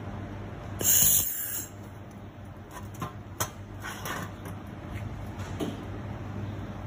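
2000 W handheld fiber laser welder firing along a corner seam of 2 mm coated iron: a loud burst of hiss about a second in, lasting about a second, over the machine's steady low hum. A few light clicks follow as the workpiece is handled.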